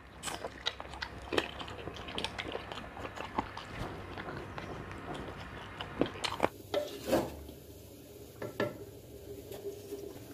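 Close-up eating sounds of chicken biryani eaten by hand: chewing, biting and many small wet clicks and smacks. About six seconds in the sound changes abruptly, and a couple of sharper knocks follow.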